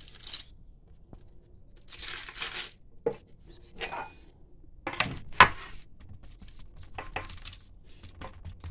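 Metal baking tray being moved and set down on the counter, two sharp knocks about five seconds in, with baking paper rustling under the dough logs and a few lighter clicks.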